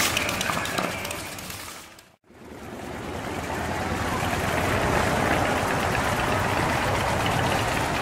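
Cruiser and touring motorcycles riding slowly past, engines running with a deep low rumble. The sound fades out about two seconds in and fades back up over the next two seconds.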